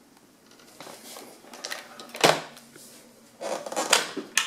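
Hard plastic clatter and scraping from handling a Roomba robot vacuum and its battery, with a sharp knock about two seconds in, more scraping near the end and a final click.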